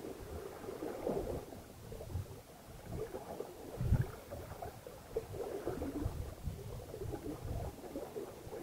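Water rushing, sloshing and gurgling along the hull of a sailing yacht under way, in irregular surges, with gusts of wind buffeting the microphone.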